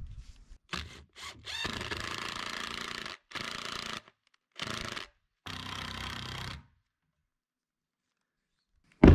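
Cordless DeWalt drill driving screws into a wooden board. It starts with a few short blips, then runs in four longer steady stretches with brief pauses between them, and stops about two-thirds of the way through.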